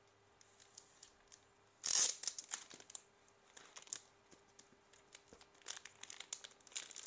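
Paper or plastic card packaging being torn open and crinkled by hand: a loud rip about two seconds in, then scattered crinkling, with another spell of crinkling near the end.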